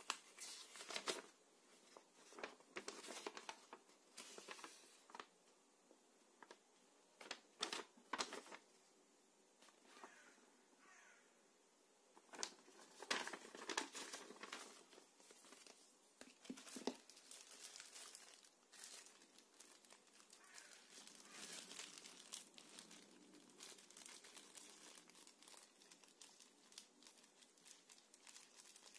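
Faint rustling and crinkling of a paper instruction leaflet being unfolded and handled, in irregular bursts, with plastic packaging crackling near the end.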